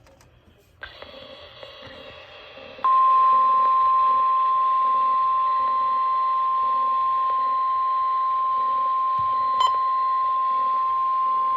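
NOAA Weather Radio's 1050 Hz warning alarm tone: one steady high tone held for about nine seconds, starting about three seconds in over a hissing radio signal. It heralds a warning broadcast, here a severe thunderstorm warning.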